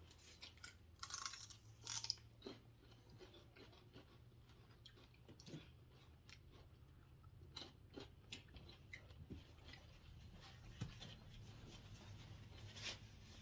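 Faint sounds of people eating: scattered soft bites, chews and crunches, over a low steady hum.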